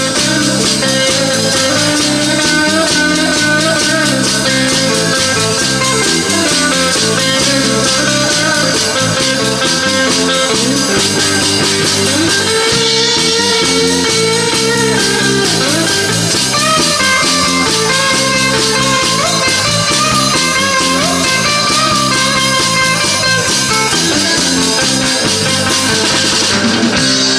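Live rock band playing an instrumental break, with no singing: an electric guitar leads over bass and drum kit, its melody bending up in pitch here and there.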